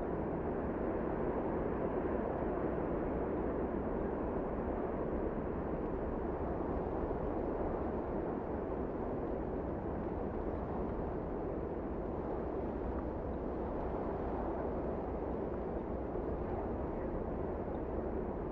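Storm sound effect: a steady, dull rushing of strong wind and rain, even throughout, with no distinct thunderclap.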